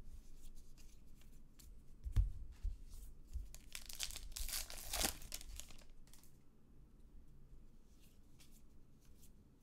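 A baseball trading-card pack wrapper being torn open and crinkling, loudest for a second or so near the middle. Around it come a few soft knocks and the rustle of the cards being handled.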